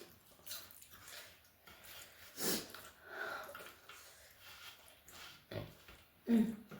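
Close-miked eating sounds: chewing and mouth noises with scattered short crunchy strokes, like papad and rice being eaten, and a brief hummed voice sound near the end.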